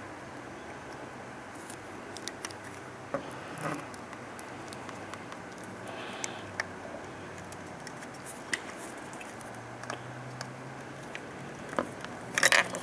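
Faint scattered ticks and scrapes of a soldering iron and fingers working capacitors loose from a monitor's circuit board, over a low steady hum. A short, louder metallic rattle comes near the end.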